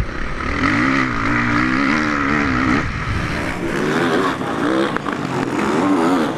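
Motocross bike engine revving hard, its pitch rising and falling quickly as the throttle is worked. About three seconds in, the sound switches to another motocross bike's engine, again revving up and down.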